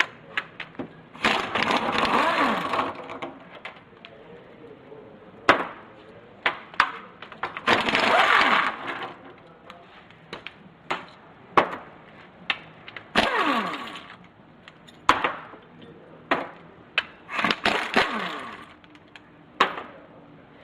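Hand tools working on a Tremec TKO 600 transmission: sharp metallic clicks and knocks scattered throughout, with four longer noisy bursts, each a second or two long.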